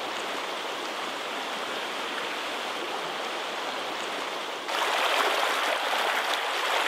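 Creek water rushing over a shallow riffle and splashing white around a submerged branch, a steady rush that becomes louder about two-thirds of the way through.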